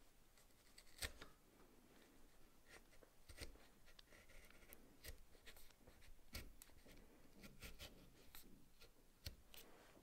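Chisel paring softwood by hand: soft, irregular scrapes and clicks as the edge slices off thin shavings, with a few sharper ticks.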